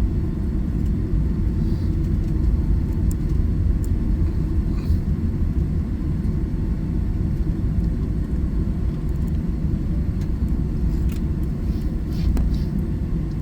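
Steady low rumble inside the cabin of a Boeing 757-200 rolling on the ground after landing, with a few faint ticks and rattles.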